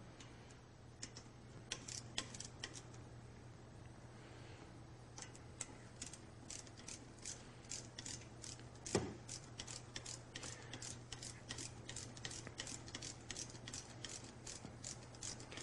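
Ratchet wrench clicking as a brake caliper hold-down bolt is turned out: a few scattered clicks at first, then a steady run of about three clicks a second. A single knock about nine seconds in.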